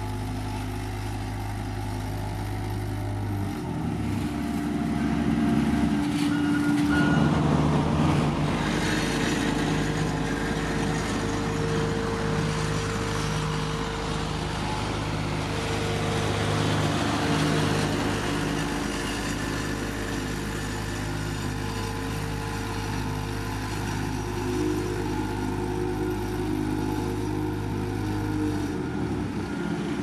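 Engines of heavy road-paving machinery running, a steady hum that shifts in pitch several times as the machines work. A rougher, noisier stretch starts about a quarter of the way in.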